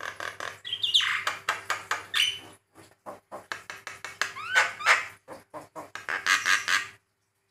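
Javan myna (jalak kebo) calling in a fast run of short, harsh chattering notes mixed with rising whistles, which come about a second in and again around the middle; the calling breaks off shortly before the end.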